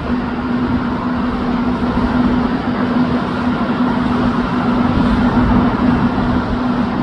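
Boeing 787-9 jet engines running: a continuous rumble with a steady low hum, growing slightly louder.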